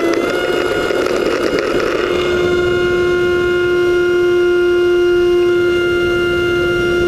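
Radio-controlled model airplane's motor and propeller running at full throttle, heard from the onboard camera during takeoff. A rough rumble of ground roll and wind for the first two seconds, then a steady whine as it flies.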